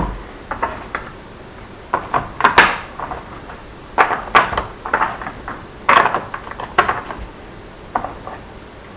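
Small Minnesota Spatial Relations Test blocks being picked up and dropped into the cut-out slots of a formboard. Short clusters of light knocks and clatters come every second or two.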